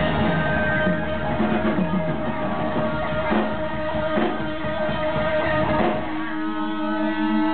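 Live rock band, with distorted electric guitars, bass and drums, playing loudly; the drums strike a few accented hits. About six seconds in, the drumming drops away and the band holds a ringing chord.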